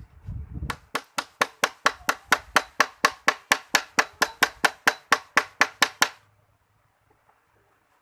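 Rapid, evenly paced hammer blows, about four to five a second, around twenty-five sharp knocks that stop abruptly near the end.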